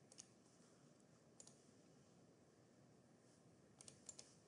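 Near silence broken by faint computer mouse clicks: two close together at the start, one a little over a second in, and a quick run of about four near the end.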